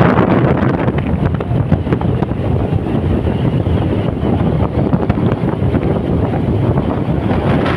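Strong crosswind off the sea buffeting the microphone, a loud steady rumble over the noise of a vehicle travelling along.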